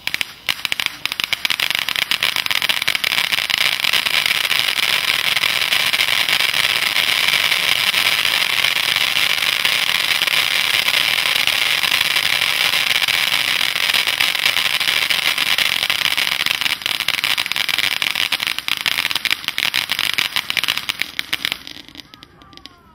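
Royal Party Fire Phoenix conical firework fountain burning: a loud, steady hiss of spraying sparks with a dense crackle running through it. It swells over the first few seconds, turns patchier in the last few, and dies away as the fountain burns out near the end.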